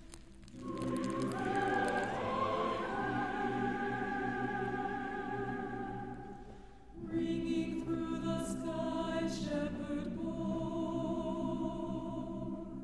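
Choral music: voices singing long held notes with vibrato, a new phrase beginning about half a second in and again about seven seconds in.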